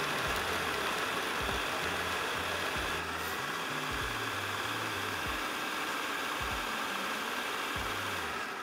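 Food processor motor running steadily while its blade chops roughly cut red carrot pieces into fine shreds. The sound dips slightly about three seconds in.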